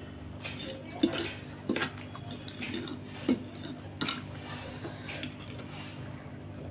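A metal fork clinking and scraping against a plate while gathering noodles, with several sharp clinks spread through.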